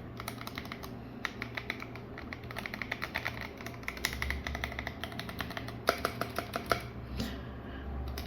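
Typing test on a Gamakay K61 mechanical keyboard fitted with Akko Crystal V3 Pro switches and transparent keycaps: rapid, continuous keystroke clacks, with a run of louder strikes about six seconds in. Its stabilizers are not lubricated.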